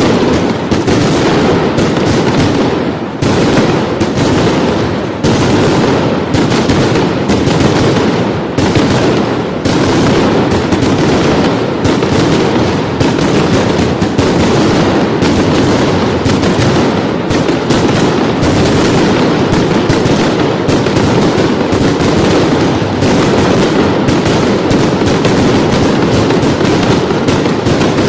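Fireworks and firecrackers going off in a dense, rapid barrage: a loud, continuous rattle of overlapping bangs with no pause.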